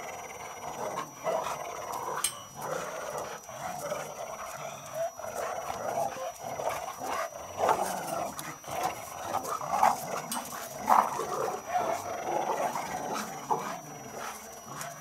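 Dogs growling during a tug-of-war over a plastic traffic cone, in irregular swells that rise and fall throughout.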